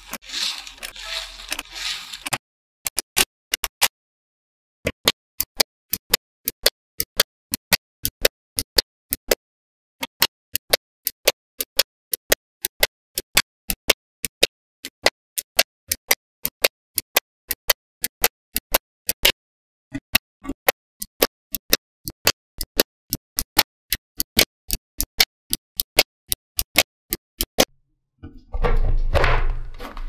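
Small magnetic balls clicking together one at a time, at about two sharp clicks a second with a few short pauses. A burst of noise opens the stretch, and another burst with a low thump comes near the end.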